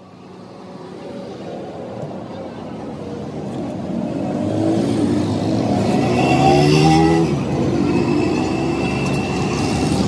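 A motor vehicle's engine running and growing steadily louder over several seconds, then holding level.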